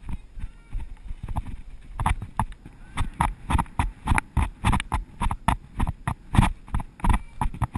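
Horse's hooves striking dry dirt at speed, heard from the saddle: a quick, even rhythm of hoofbeats that is lighter for the first second or so and then runs on steadily.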